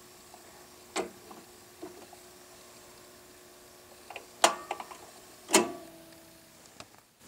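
Belt-drive turntable motor running on its first test after a new belt, a faint steady hum that stops about six seconds in. Several sharp clicks and knocks, the loudest about four and a half and five and a half seconds in.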